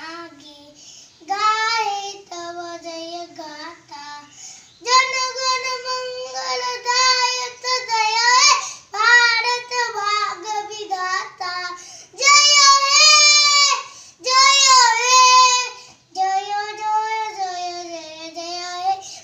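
A young boy singing unaccompanied, in phrases of held notes with short breaks between them; two high, loud held phrases come about two-thirds of the way through.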